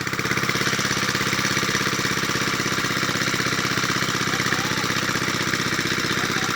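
Small engine running steadily with a fast, even beat of firing pulses.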